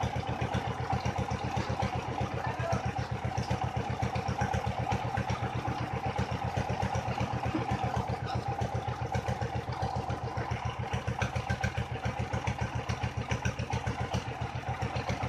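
Small engine of a well-boring rig's pump unit running steadily, with an even, rapid chugging beat.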